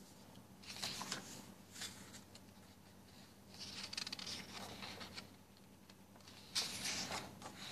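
Paper pages of a hardcover picture book being turned by hand: about four faint rustles and swishes, the loudest near the end.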